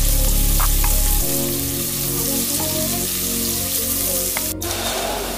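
Prawns and bell peppers sizzling in a hot frying pan, a steady crackling hiss, under background music. The sound drops out for an instant about four and a half seconds in.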